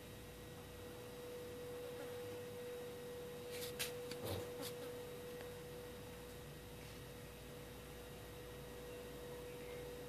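A few short, sharp chirps from lovebirds in an aviary, clustered about four seconds in, over a steady high-pitched hum.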